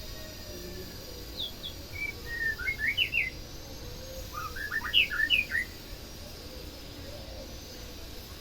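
White-rumped shama (murai batu) singing two short phrases of quick, sharply gliding whistled notes, the second starting about a second after the first ends, over a faint steady background noise.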